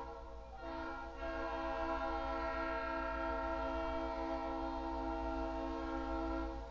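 Diesel locomotive air horn, most likely on EMD GP38-2 GMTX 2342, sounding a steady chord. It breaks off briefly about half a second in, then sounds one long blast of about six seconds that cuts off near the end.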